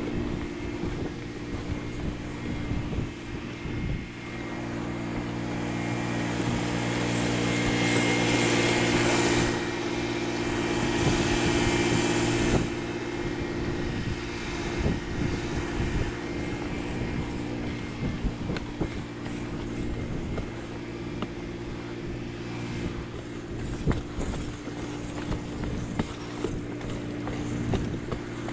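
Pressure-washing rig's engine running at a steady drone, with the hiss of water spraying from the wand onto roof tiles building up and cutting off about halfway through.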